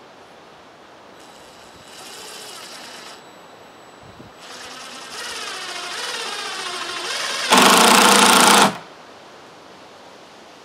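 Cordless impact driver driving a screw into a wooden railing. It runs in two spurts of motor whine, the second rising in pitch, then gives about a second of loud rapid hammering as the impact mechanism engages and the screw seats.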